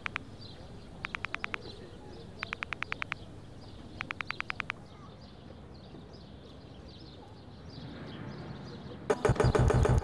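Collaged soundtrack: four short bursts of rapid clicking about a second and a half apart over faint bird chirping, then a loud rattling clatter near the end.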